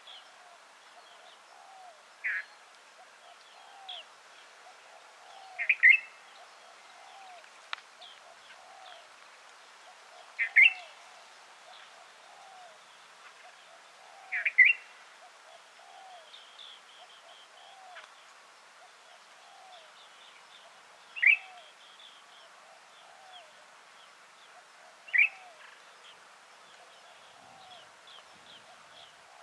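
White-eared bulbul calling, short sharp notes repeated every three to four seconds. Softer, lower chirps repeat about twice a second underneath throughout.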